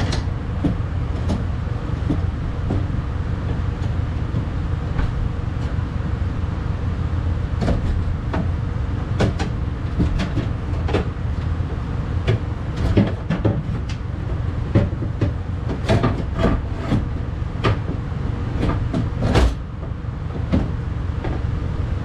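Metal window regulator of a 1999 Ford Ranger knocking, clicking and rattling against the inside of the door shell as it is worked loose and lifted out, with irregular knocks, the loudest near the end, over a steady low rumble.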